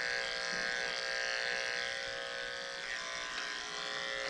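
Electric dog grooming clippers running steadily with an even buzzing hum, shaving through a puppy's matted coat.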